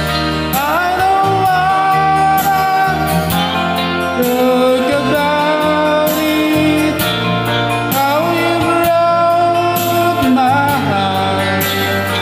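A man singing a slow ballad over guitar accompaniment, in two phrases of long held notes with a short break between them.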